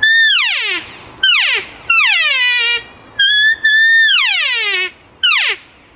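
Handheld elk cow call blown loudly in a series of about six mews, each starting high and sliding steeply down in pitch, some short and some held before they drop. This is the call loud enough to locate call and get bulls to answer at a distance.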